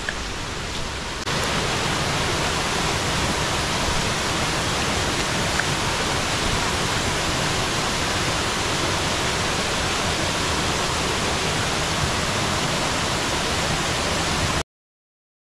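Waterfall falling through a rocky gorge: a steady rush of water. About a second in it steps up louder from a quieter wet-road ambience, and it cuts off abruptly near the end.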